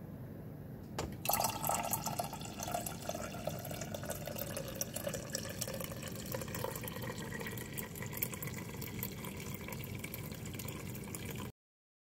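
A click as the dispenser lever of a Cuisinart Coffee on Demand machine is pressed, then a steady stream of coffee pouring from its spout and splashing into a mug, with a tone in the pour that slowly drops.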